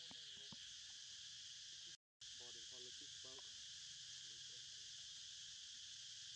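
Steady high insect drone of crickets or cicadas, with a few faint, short, pitched calls in quick runs. The sound cuts out completely for a moment about two seconds in.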